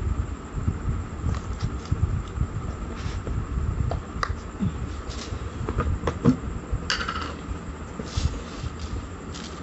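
Steady low rumble of air buffeting the microphone, with a faint steady hum and a few scattered light clicks and taps.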